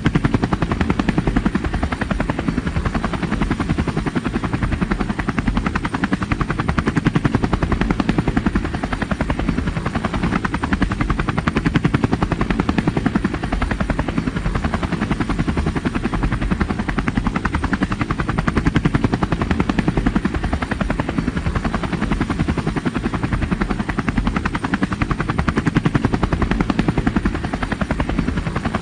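Loud, steady mechanical noise with a fast, even pulsing and a heavy low end, like an engine or rotor running without change.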